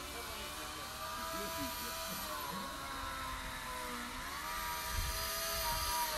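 A steady motor drone, like an engine running at a distance, whose pitch sags about four seconds in and comes back up.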